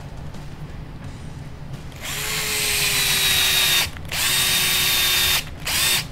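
Electric drill driving screws into an RC buggy's differential cup, its motor whining in three runs: about two seconds, then a second and a half, then a short burst near the end.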